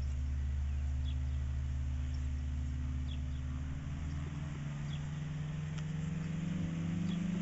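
Kolb Kolbra ultralight's engine and propeller running as it taxis, with the pitch rising steadily over the second half.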